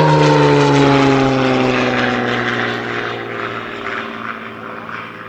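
A propeller-driven Second World War fighter passes fast and close with its piston engine at full power. The engine note drops steadily in pitch as it goes by, loudest at the start and fading away.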